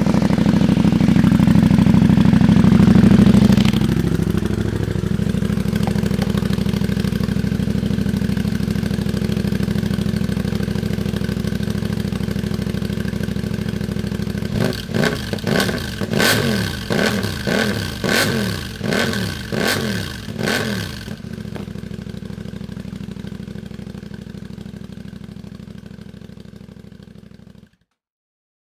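CF Moto 800MT Explore parallel-twin engine running through an exhaust whose catalytic converter has been replaced by a link pipe: held at raised revs, then dropping to idle a few seconds in, then a run of quick throttle blips midway before settling back to idle. The exhaust note is loud and deep.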